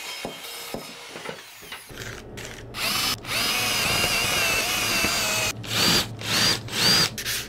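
Cordless drill boring holes in larch: a steady motor whine for about three seconds, then three short spurts of the motor, each rising in pitch. The first two seconds are quieter, with a few light clicks.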